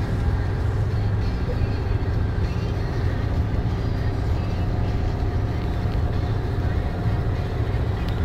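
Mercedes-Benz Actros truck engine running steadily under way, heard from inside the cab as an even low drone.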